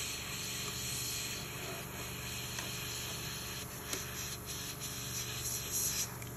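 Airbrush spraying pink paint onto acrylic nails on a low setting: a steady hiss, with a few faint ticks in the second half.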